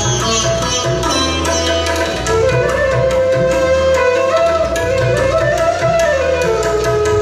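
Instrumental interlude of a Mappila song's accompaniment: a held melody line that slides between notes over a steady percussion beat.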